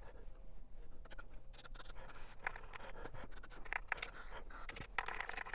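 Quiet, irregular clicks, scratches and scrapes of hand work on an opened turntable's control switches while they are being cleaned.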